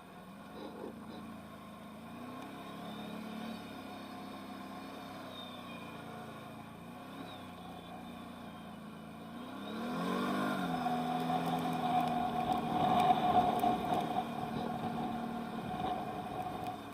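Can-Am Outlander 1000R XMR ATV's V-twin engine running at low revs, then revving up sharply about ten seconds in and pulling hard and louder for several seconds before easing off near the end.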